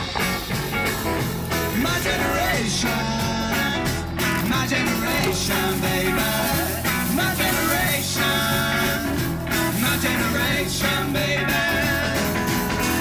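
Live rock band music with guitars, bass guitar and a singing voice.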